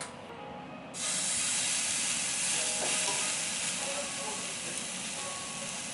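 Slice of raw wagyu beef sizzling on a wire grill over hot charcoal. The sizzle starts suddenly about a second in, then runs loud and steady, easing slightly near the end.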